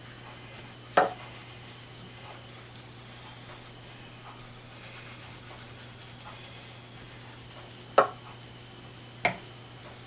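Three sharp, hard knocks, one about a second in and two close together near the end, over a steady low hum.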